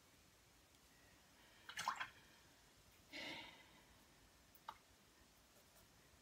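Near silence broken by a few brief sounds of a paintbrush at work: a quick cluster of taps and clicks about two seconds in, a short swish a little after three seconds, and a single click near five seconds.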